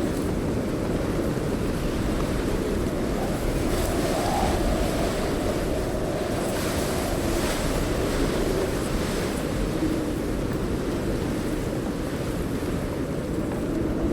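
Wind sound effect: a steady low rushing rumble, with a thin airy hiss over it that rises somewhat from about four to nine seconds in.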